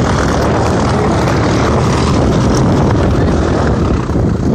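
Single-engine propeller airplane's engine running loud and close as it taxis past, a dense, steady roar of engine and propeller.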